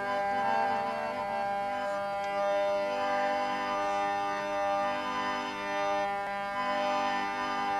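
Instrumental interlude between the sung lines of a live Gujarati devotional bhajan: a melody instrument holds steady, sustained notes that change now and then, with no singing.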